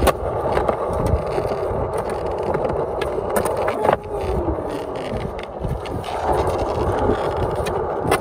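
Skateboard wheels rolling over rough, cracked concrete with a steady grinding rumble, broken by a few sharp clacks of the board popping and landing, the loudest about four seconds in.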